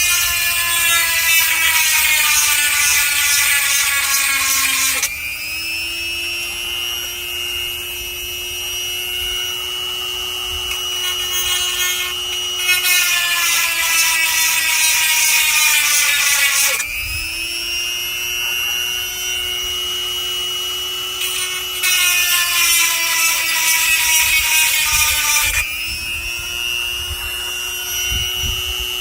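Seesii 180 W electric chainsaw sharpener running on its lowest speed, a steady motor whine. Three spells of a few seconds each bring louder grinding as the stone files the saw-chain teeth. The motor's pitch sags under the load each time and comes back up between passes.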